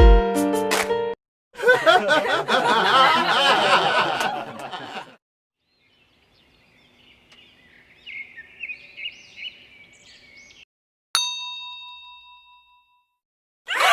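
A string of short, unrelated sound-effect clips: a few musical notes at the start, a loud noisy wavering stretch, faint chirping, then a single bell-like ding about 11 seconds in that rings for over a second, and a short loud sweep near the end.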